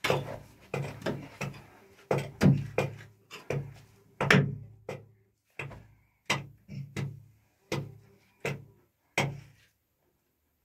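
A series of sharp knocks, close together at first and then spaced about a second apart.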